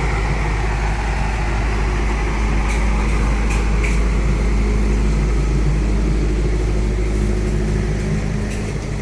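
A small park toy train running on its track with a steady rumble. A few brief clicks come about three and four seconds in.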